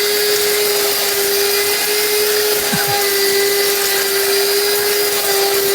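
Electric spice grinder mill running steadily under load, grinding cinnamon bark to powder: a constant motor whine over a hiss.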